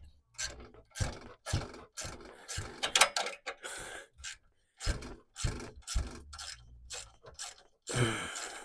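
Hand ratchet clicking in short, irregular strokes as a socket turns a bolt on the exhaust flap actuator.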